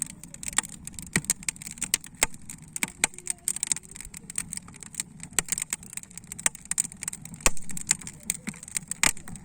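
Wood fire burning in a kamado cooking hearth: irregular sharp crackles and pops over a low steady rumble that echoes in the hearth.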